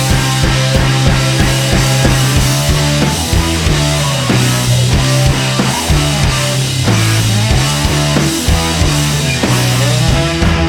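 Rock music with a driving drum beat, distorted guitar and a steady bass line.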